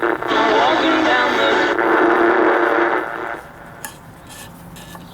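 AM broadcast music playing through the Philco 40-125 tube radio's speaker, thin and narrow in range. About three seconds in it drops away to a low hiss with a few faint crackles.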